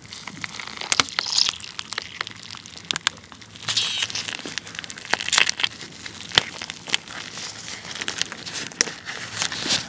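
Soy-sauce-marinated raw crab body squeezed in gloved hands: wet squelching and crackling of shell and meat, with many sharp clicks.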